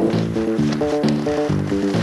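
Background music: a quick, even run of short pitched notes over a steady beat.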